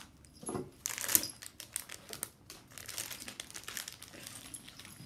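Clear plastic packaging of a set of push pencils crinkling and crackling as it is handled and pulled open by hand, with the loudest crackle about a second in.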